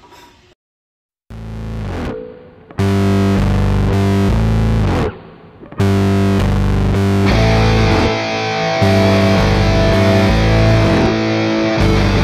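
Background music: distorted electric guitar rock, starting after a brief silence about a second in, with a short break in the middle.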